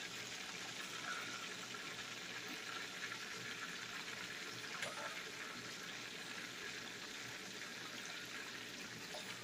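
Chicken wings deep-frying in peanut oil in a cast-iron skillet: a steady bubbling sizzle, with a couple of faint clicks.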